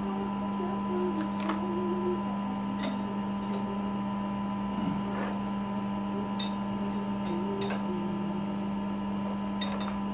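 Steady hum, with several light metallic clicks and taps as a quarter-inch Woodruff cutter is fitted into the milling machine's spindle.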